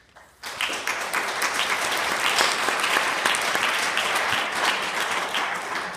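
An audience applauding: many hands clapping together, starting about half a second in and dying away near the end.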